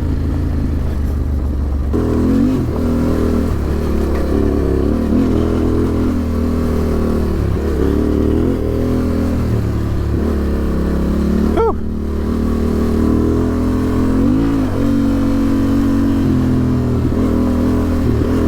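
Adventure motorcycle engine running hard on a rough trail, its revs rising and falling with the throttle. About twelve seconds in there is one brief sharp rise in revs.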